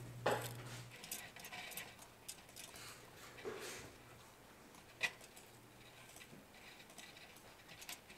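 Quiet small handling sounds while a lead wire is soldered onto electric-motor stator windings: light clicks and rustles of wire and aluminium foil, with one sharper click about five seconds in.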